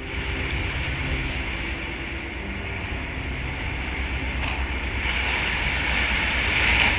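Wind and rushing sea water aboard a ship in a storm, over a steady low rumble; the rush of water swells near the end.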